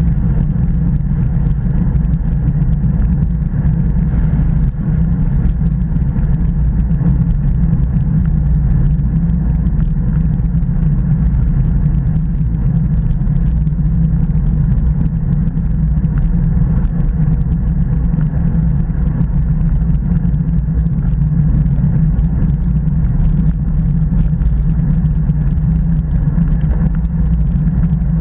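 Steady low wind rumble on the microphone of a bicycle-mounted action camera riding at about 30 km/h.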